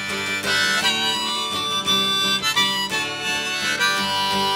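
Harmonica playing a melody in stepped, held notes over guitar accompaniment, as an instrumental break between sung verses of a folk song.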